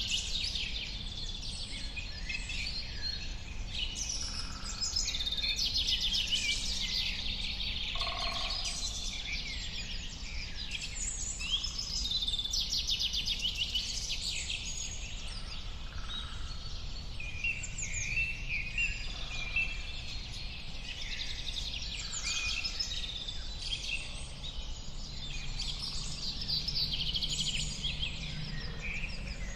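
Several birds singing and calling at once: a dense, continuous chorus of overlapping chirps and fast trills, over a steady low background noise.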